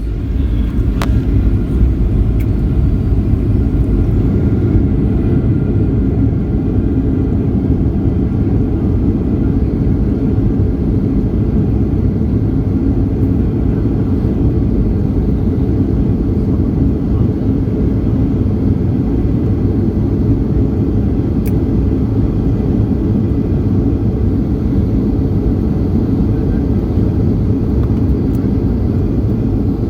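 Steady jet engine and airflow noise heard inside a passenger jet's cabin: an even, deep rumble with no distinct events.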